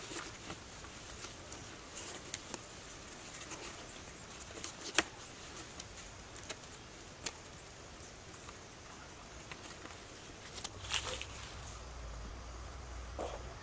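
Forest ambience: a faint steady high-pitched insect hum with scattered sharp clicks and snaps, the loudest about five seconds in and a cluster around eleven seconds, and a low rumble starting near the end.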